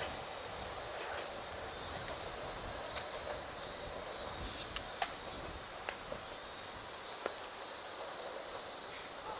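Insects chirring in a steady run of high-pitched pulses, with a few faint clicks scattered through.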